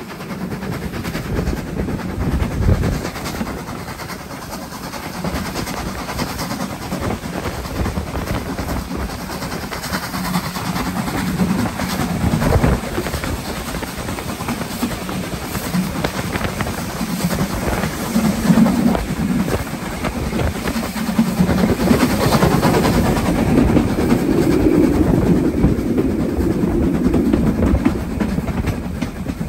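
Lancashire & Yorkshire Railway Class 25 0-6-0 steam locomotive 52044 hauling a heavy train, heard from the coach just behind it: continuous running rumble and wheel-on-rail clatter that swells and eases.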